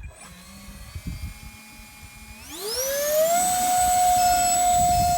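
Electric motor and propeller of a battery-powered RC plane turning at low throttle with a low hum, then, a little over two seconds in, spooling up in a quick rising whine to a loud, steady high-pitched whine at full power: the throttle-up for takeoff.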